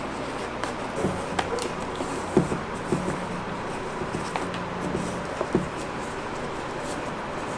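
A few short clicks and taps as laces are threaded through the metal eyelets and hooks of leather hiking boots, over a steady background hum.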